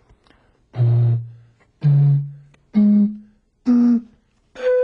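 Homemade panpipes of plastic soda and juice bottles taped together, blown across the bottle tops: five breathy hoots about a second apart, each a steady note higher than the last. The bottle holding the most air gives the lowest note.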